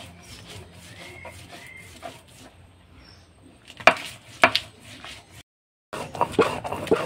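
Stone roller grinding a mustard, poppy seed and green chilli paste on a Bengali sil-nora grinding stone, a faint, steady rasping scrape. Two short sharp loud sounds come about four seconds in, and a cluster of them near the end.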